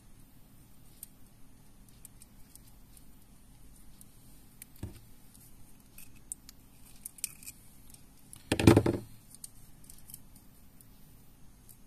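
Light metallic clicks and jingles of small split rings, a hook and needle-nose pliers being handled while fitting them onto a foam mandula fishing lure. About two-thirds of the way through comes one louder, short burst of noise.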